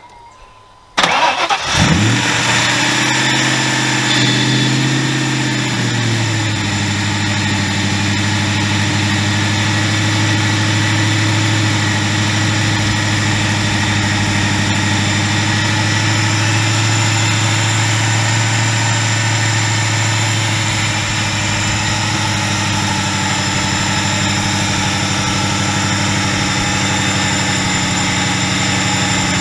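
Ford 4.6-litre DOHC four-valve V8 started up: it catches about a second in, holds a fast idle for a few seconds, then settles to a steady lower idle. It is running on freshly fitted new coil packs and a new cold air intake.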